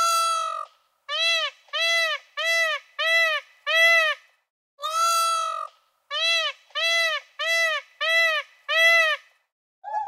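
Indian peafowl (peacock) calling: a long call, then a run of about five short calls that rise and fall in pitch, a second long call about five seconds in, and another run of about five short calls.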